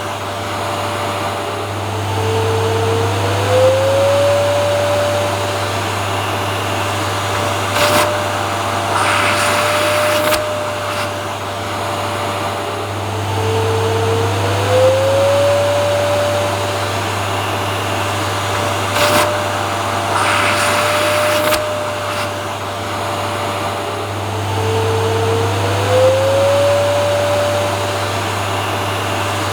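Vacuum cleaner motor running continuously with a steady whine and hiss. About every eleven seconds the whine drops in pitch and glides back up, and short louder bursts of hiss come in between.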